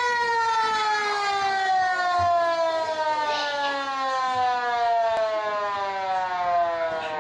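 Football ground siren sounding for the start of play: one long tone that slides slowly and steadily down in pitch as it winds down. A single sharp click comes about five seconds in.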